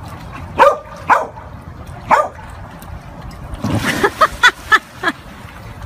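A large dog barking: three barks spread over the first two seconds, then a quick run of about four. Just before that run, a heavy splash into pool water.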